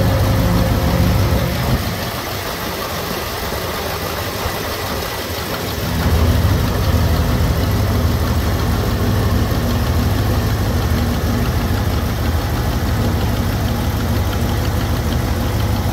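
1965 Ford Thunderbird's 390 V8 running at idle, a steady low engine note. The low rumble drops back for a few seconds about two seconds in and comes back strongly about six seconds in.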